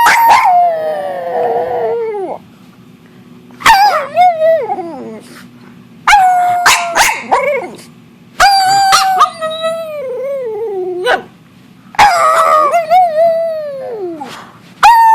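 Dog howling: a series of about six long howls a couple of seconds apart, each starting high and sliding down in pitch.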